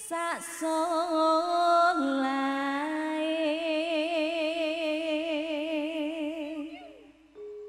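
A woman singing a slow Javanese campursari vocal line into a microphone, holding long notes with wide vibrato. There is a quick downward slide shortly after the start, and the voice fades away near the end.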